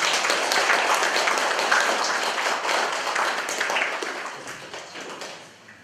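A small audience applauding, loud at first and dying away near the end.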